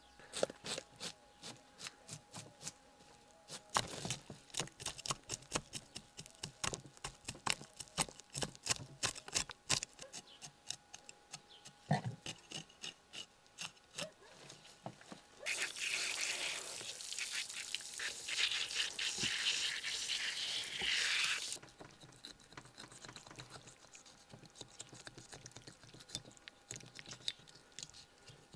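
Knife scaling a large carp on a tabletop: a run of sharp scraping strokes and clicks as scales come away. A louder continuous hiss lasts about six seconds past the middle.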